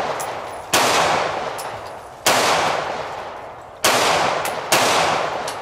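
Four gunshots, the first three about a second and a half apart and the last coming sooner. Each is followed by a long fading echo.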